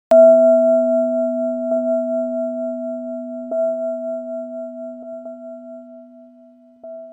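A struck metal tone, bell-like, rings out once and fades slowly, with a few light taps during the fade; the last, near the end, briefly lifts it.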